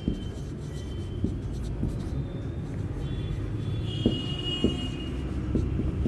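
Marker pen writing on a whiteboard, with a few light taps of the tip against the board, over a steady low rumble.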